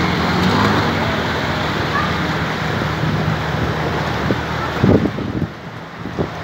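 Shallow floodwater rushing and rippling down a street, a steady hiss of moving water with a low steady hum under it for the first four seconds or so. About five seconds in, wind buffets the microphone with a few sharp crackles, and the sound drops quieter after that.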